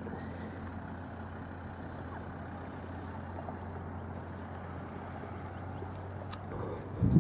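Steady low engine-like hum, even in pitch throughout. Near the end, wind buffets the microphone with a louder low rumble.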